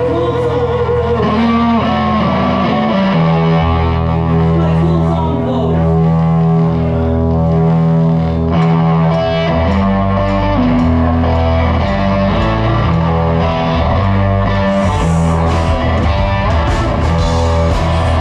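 Live blues-rock band playing without vocals: electric guitar leads over bass and drums, with sharp drum hits through the last few seconds.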